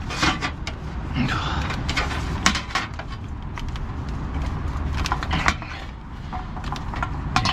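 Scattered clunks and clicks of airline hoses and fittings being handled, over a steady low rumble.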